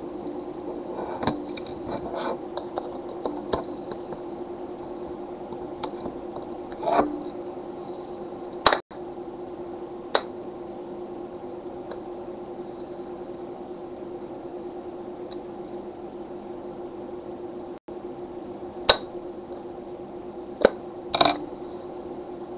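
Scattered clicks and taps of small plastic parts being handled and pried as a handheld device's top screen is taken apart, over a steady hum. The sharpest clicks come about nine seconds in and three times near the end.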